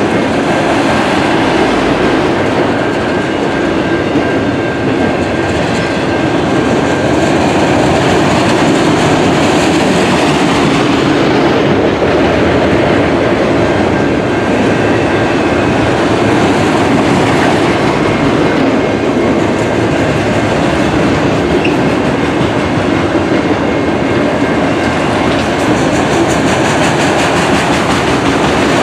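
Empty autorack freight cars rolling past close by: a steady rumble and rattle of steel wheels clicking over the rails, with a faint thin squeal coming and going.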